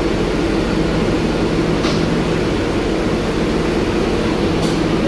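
New York City Subway 4 train standing in the station, its car equipment and air conditioning giving a steady loud hum, with two short faint hisses.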